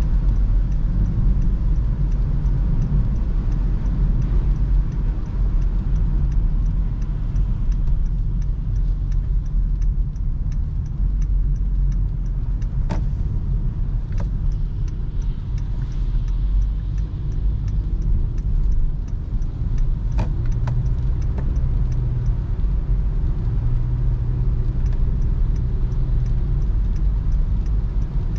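Cabin noise of a Honda City 1.5 CVT driving on a wet road: a steady low rumble of tyres and engine, with a few light clicks.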